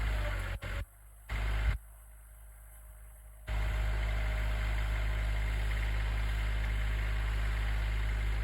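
Tractor engine running steadily. It cuts in and out abruptly: on for about the first second, briefly again a little later, then continuously from about three and a half seconds in.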